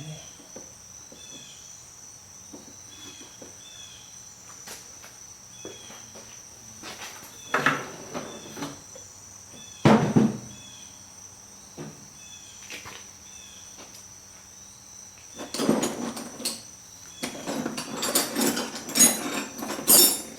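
Metal hand tools clinking and rattling while small nuts on a hub locking plate are worked at: two sharp knocks about eight and ten seconds in, then a longer run of clattering near the end. A cricket chirps steadily in the background.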